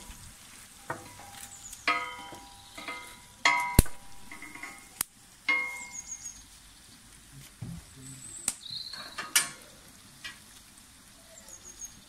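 Chicken livers and onions frying in a steel plough disc over a wood fire: a low sizzle broken by about ten sharp metallic clinks, several of them ringing, the loudest about four seconds in. A few short high chirps come through as well.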